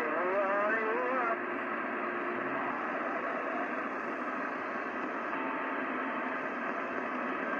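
CB radio receiver on channel 28 hissing with static, heard through its narrow radio speaker. A warbling, garbled distant transmission fades out in the first second and a half, leaving steady band noise as the skip signal drops away.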